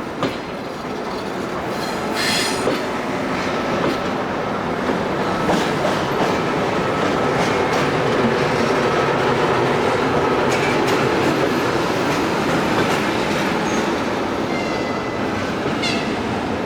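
Passenger train rolling into a station: a steady rumble of coach wheels on the rails with scattered clicks over the rail joints. A brief high wheel squeal comes about two seconds in, and thin squeal tones near the end.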